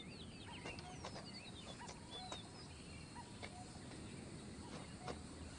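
Faint forest ambience of birds chirping and calling in short high notes, with a few light clicks.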